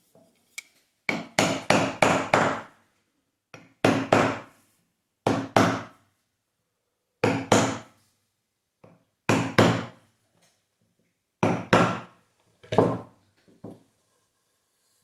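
A hammer driving a wooden fillet into the slot of a snooker-table cushion rail, locking the cloth in place: sharp wooden knocks in quick runs of two to five strikes, about seven runs with short pauses between.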